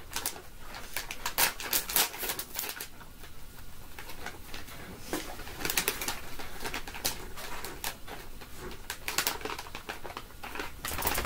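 Plastic dog-treat pouch crinkling and rustling in the hands as it is torn and worked open, in quick irregular crackles.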